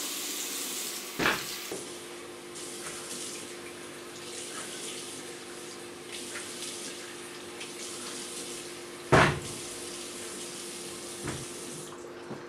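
Water running steadily from a washbasin tap into a sink. Two sudden loud hits cut through it, about a second in and about nine seconds in, with a smaller one near the end.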